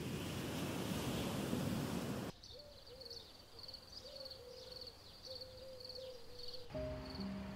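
A soft outdoor hiss of wind or rustling for about two seconds, then quiet dusk ambience with crickets chirping in steady pulses, a few a second, over a faint wavering low tone. Gentle music notes come in near the end.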